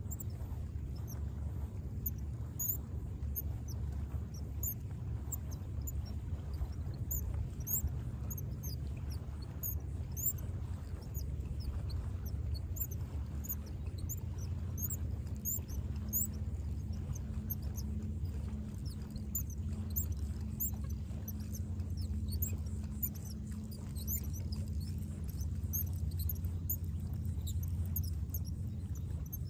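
Kayak under way on calm water with a steady low hum from its drive, and many short, high chirps scattered throughout.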